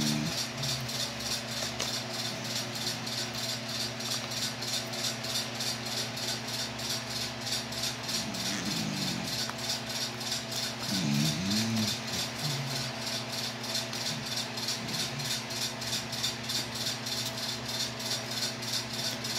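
Rapid, even ticking rattle, about three ticks a second, over a steady low electrical hum, with two brief faint murmurs of a voice near the middle.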